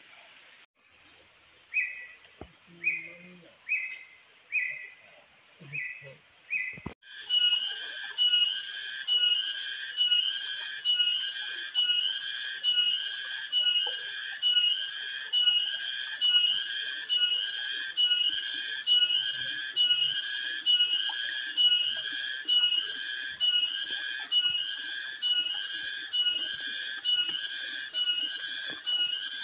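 A steady high-pitched buzz with six short chirps over it; about seven seconds in, a louder rhythmic animal call takes over, repeating about three times every two seconds.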